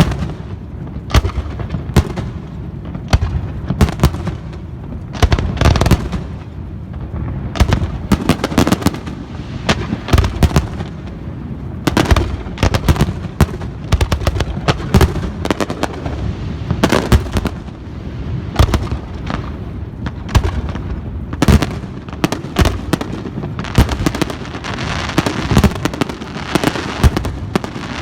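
Fireworks display: a dense barrage of booming shell bursts and sharp reports, thickening near the end into continuous crackling.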